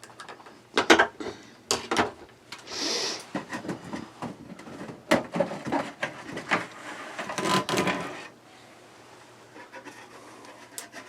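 Brittle plastic interior garnish of a Fantastic Fan roof vent being worked loose from the RV ceiling: irregular clicks, knocks and rubbing of plastic on plastic. It dies down about eight seconds in.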